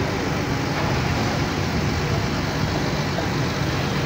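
Vehicle engine running steadily at a low pitch amid continuous street traffic noise.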